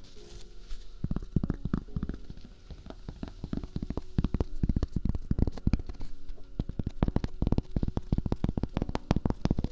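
Fast, close-miked wet mouth clicks and smacks, several a second, growing denser and louder about four seconds in.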